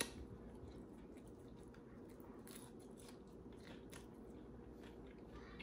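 Faint chewing of curly fries: soft, scattered mouth clicks and crunches, with one slightly louder click at the start.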